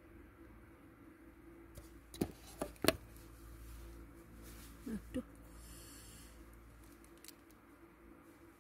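Handling noise from a phone being adjusted by hand: a quick cluster of sharp clicks and taps about two to three seconds in, then two short falling squeaky sounds around the middle, over a low steady hum.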